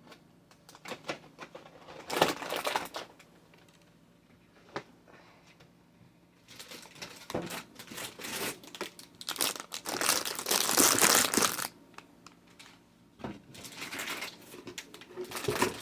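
Crinkling packaging being handled in several irregular spells, the longest and loudest about two-thirds of the way through.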